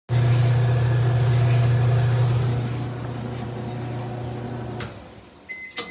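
An electric motor starts running with a steady low hum and rush of air. It dies away about five seconds in, followed by a click and a short high beep with sharp clicks near the end.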